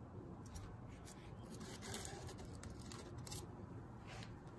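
Faint scattered clicks and taps of small plastic containers and metal tweezers being handled and set down on a wooden table, over a low steady rumble.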